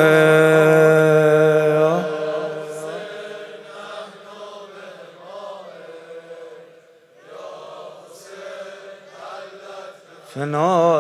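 A man's voice over a microphone holding a long sung note of a Muharram lament, which stops about two seconds in. Much quieter, wavering chanting follows, and a loud held note starts again near the end.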